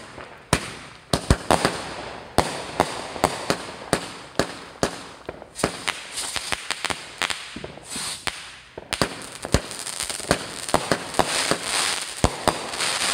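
Brothers Fireworks 'Wild West' multi-shot firework cake firing: sharp bangs of shots launching and bursting in quick, irregular succession. Crackling fills in between them around the middle and through the last few seconds.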